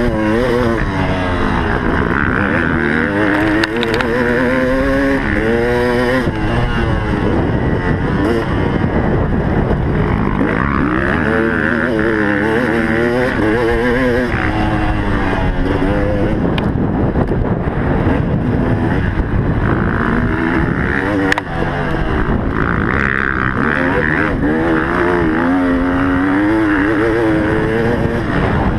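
Motocross bike engine revving hard, its pitch climbing and dropping again and again as the rider accelerates, shifts and backs off around the track.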